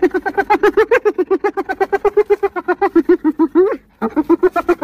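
Spotted hyena giggling: a fast run of short pitched notes, about nine a second. Near the end one note rises, there is a brief break, and then the notes resume.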